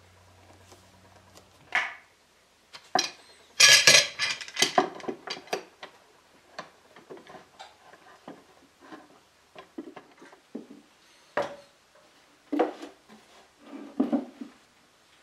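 Steel bar clamps and wooden blocks clanking and knocking as the clamps are set on a glued-down table top. A dense run of metal clinks and rattles comes about three to five seconds in, then scattered single knocks.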